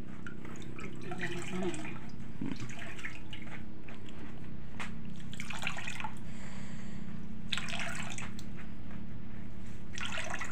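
Water splashing and dripping in short irregular bursts as a mortar bowl is rinsed over a bucket. A steady low hum runs underneath.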